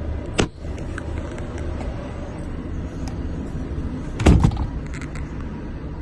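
Renault T480 truck's six-cylinder diesel engine running steadily, with two sharp knocks, one about half a second in and a louder one about four seconds in.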